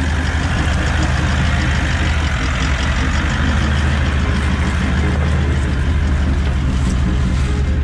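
Four-wheel-drive vehicle's engine running steadily at a constant pitch, with a loud even hum.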